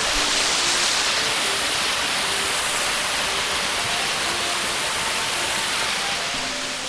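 Waterfall: falling water making a steady rushing noise.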